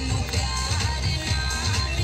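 Loud Hindi pop dance song playing, with a heavy, steady bass beat.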